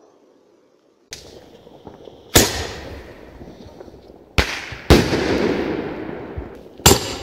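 Aerial fireworks bursting overhead: four loud bangs, the first about two seconds in, two close together in the middle and one near the end, each trailing off in a long echo.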